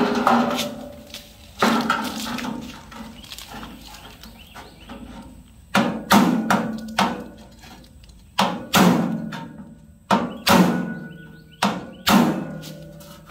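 Ball-peen hammer striking the steel dash panel of a 1966 Ford Bronco, flattening metal that has distorted around welded-up holes. There are about a dozen sharp metallic blows, each with a short ring: two near the start, a lull of a few seconds, then the rest in quick pairs.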